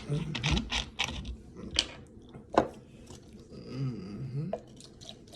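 Close-miked eating noises: sharp clicks, crunches and mouth sounds over the first few seconds, then a short, low vocal hum that bends up and down about four seconds in.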